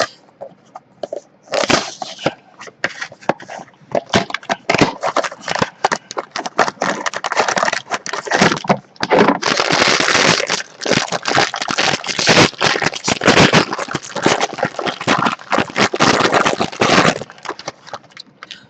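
Toy packaging being torn and worked open, a long run of crackling, crinkling and rustling that starts about a second and a half in.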